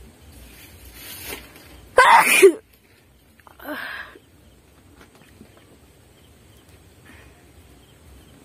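A woman sneezing: a quick in-breath, then one loud sneeze about two seconds in, followed by a shorter, quieter voiced sound about a second and a half later. The sneezes are set off by tickling the inside of her nose with a thin stick.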